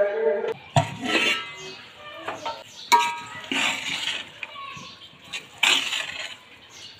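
A metal pot lid knocks as it is lifted off, then a metal spoon scrapes and stirs through cooked fried rice in a metal pot, clinking against the pot now and then.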